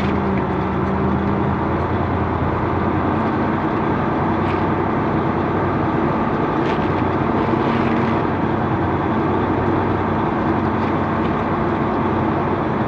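Diesel engine of a Freightliner Century semi-truck running steadily at low speed, a constant low hum under a dense, even noise.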